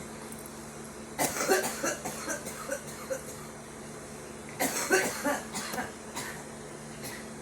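A girl coughing from smoking, in two fits of several quick, harsh coughs each: the first about a second in, the second about halfway through.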